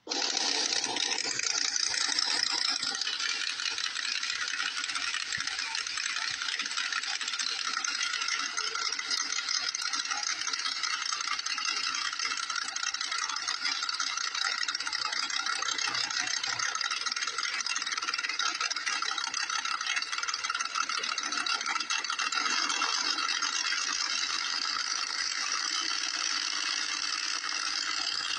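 Drag cars' engines running at the start line: a steady mechanical din.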